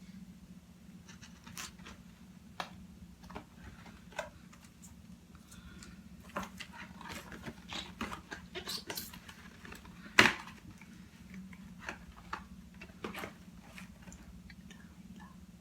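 Eating and food-handling sounds: scattered small clicks, taps and crinkles of packaging and utensils, with one sharper click about ten seconds in, over a steady low hum.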